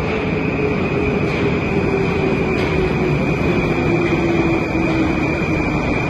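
Moscow Metro train pulling into the station along the platform: the traction motors' whine falls steadily in pitch as it brakes, over a continuous rumble of wheels on rails.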